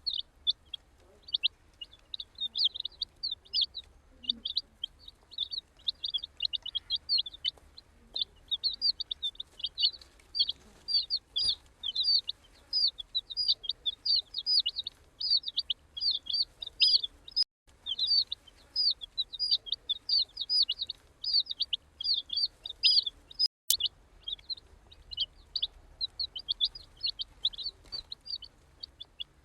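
A group of baby chicks peeping, a dense run of high-pitched chirps several a second, broken twice by a very short gap.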